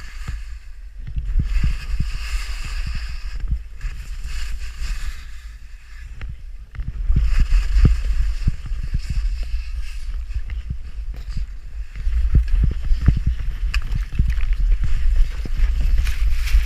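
Skis hissing through deep powder snow in repeated swells, over a constant low rumble of wind buffeting the camera microphone at skiing speed, with scattered small knocks.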